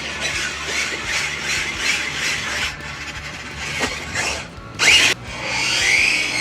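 Toy RC monster truck driving: its small electric motor and gears whirring and its tyres scraping over the ground in regular strokes. A short, loud squeal comes about five seconds in.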